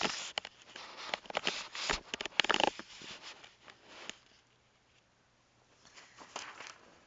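Handling noise from hands gripping and moving the recording device: rustling, scraping and light knocks, dense for about the first three seconds and loudest near the end of that stretch. A few softer rustles follow about six seconds in.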